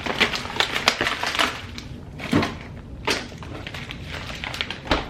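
Kitchen handling noise, with packaging and containers being grabbed and moved: a quick run of rustles and clicks, then three separate knocks.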